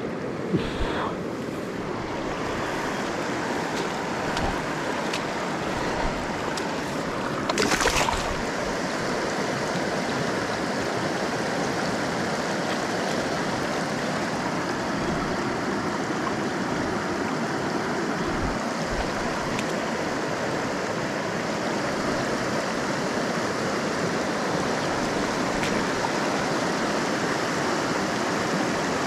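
River water running and rippling over rocks in the shallows, a steady rushing noise, with a brief loud burst of noise about eight seconds in.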